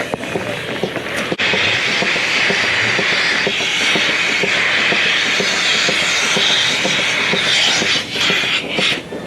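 Machinery running with a steady loud hiss over a fast, irregular rattle. The hiss rises abruptly about a second and a half in and eases off near the end.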